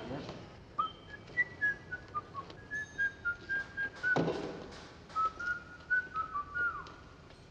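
A man whistling a tune, a string of short, separate clear notes that step up and down in pitch. A single knock sounds about four seconds in.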